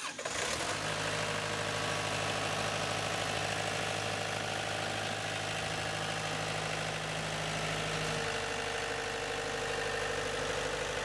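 Ship's diesel engine running steadily in the engine room, a constant hum that settles within the first second. About eight seconds in the hum shifts as its lowest tone drops out and a higher tone comes up.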